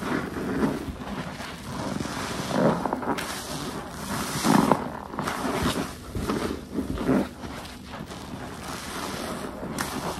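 Soaked car wash waffle sponge full of soapy detergent water being squeezed by hand, squelching and streaming water in repeated squeezes about every one to two seconds.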